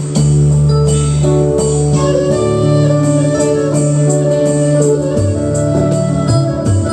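Roland Fantom 06 synthesizer played live: held keyboard notes over a bass line, with a steady percussion rhythm. The bass line turns busier about five seconds in.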